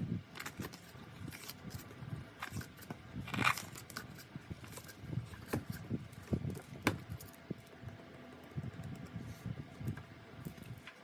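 Hands handling packaging and its contents: irregular taps, clicks and rustling scrapes, with a louder rustle about three and a half seconds in.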